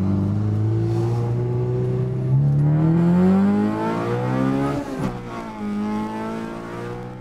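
Car engine heard from inside the cabin, accelerating through the gears: its pitch climbs, drops sharply at an upshift about two and a half seconds in and again about five seconds in, then settles into a steadier run.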